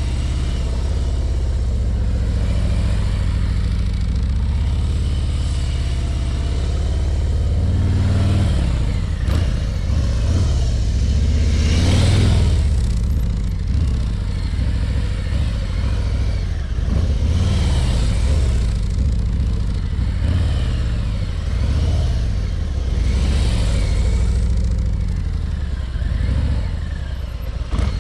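Harley-Davidson Ultra Limited's V-twin engine running at low speed as the touring motorcycle circles slowly. It grows louder each time the bike passes close, about twelve seconds in and twice more later.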